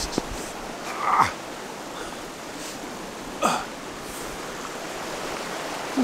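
A man grunting with effort twice as he hauls himself up off the ground, about a second in and again about three and a half seconds in, over the steady rush of a river.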